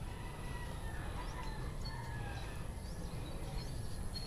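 Faint bird calls, a few drawn-out lines and short chirps, over a steady low outdoor rumble.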